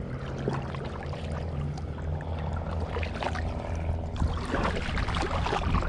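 Paddle strokes dipping and splashing in calm water as a stand-up paddleboard glides along, with water washing along the board's sides. A steady low rumble runs underneath, and the splashes grow stronger from about three seconds in.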